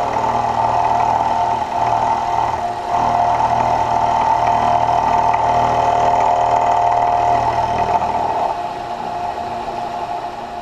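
Vertical milling machine running, its end mill cutting a flat on a steel part fed by hand, a steady whine over a low hum. The sound drops off about eight and a half seconds in.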